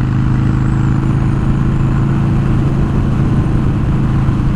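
Harley-Davidson Dyna Super Glide Custom's V-twin engine running at a steady cruise, its note holding constant, with wind and road noise.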